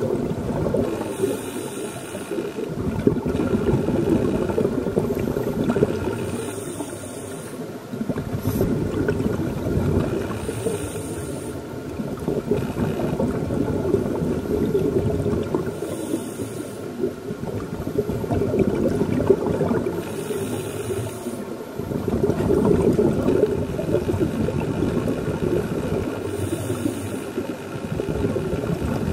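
Scuba diver breathing underwater through a demand regulator: a hiss on each inhalation about every four to five seconds, with the bubbling of exhaled air between.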